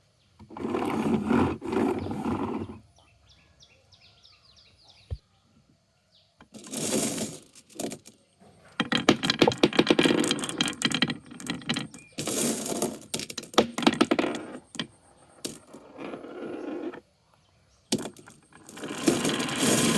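Marbles rolling and clattering down a wooden marble-run track, in several bursts of rapid clicking and rattling with short quiet gaps between them.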